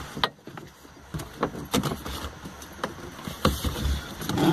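Handling noises from a person climbing into a car's driver seat: scattered knocks and clicks with rustling, some seven or eight distinct taps and bumps over a low rumble.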